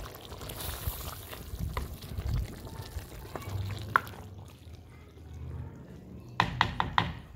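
Metal ladle stirring a simmering green bean and potato curry in a clay pot, a wet sloshing and scraping. A few sharp knocks come in quick succession near the end.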